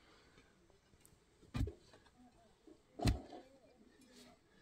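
A long-handled digging tool striking down into stony dirt twice, about a second and a half apart: short, dull thuds of a hole being dug.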